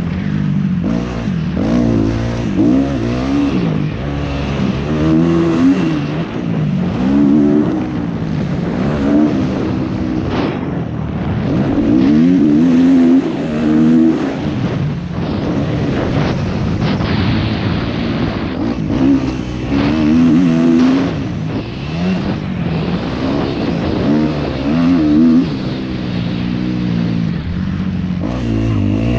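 Kawasaki KX250F's single-cylinder four-stroke engine being ridden hard, revving up and shutting off again and again, its pitch climbing and falling every second or two.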